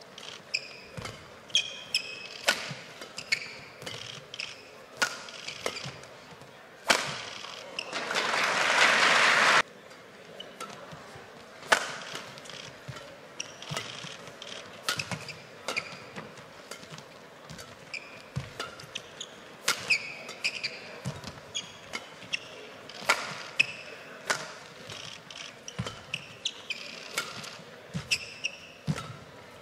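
Badminton rallies: sharp cracks of racket strings hitting the shuttlecock and short squeaks of shoes on the court mat. About seven seconds in, crowd applause swells for a couple of seconds and then cuts off abruptly.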